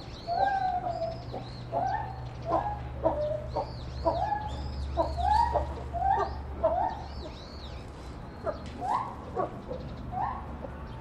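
A run of short pitched animal calls, each a quick rise and fall in pitch, several a second and overlapping as if from more than one animal, over a steady low hum.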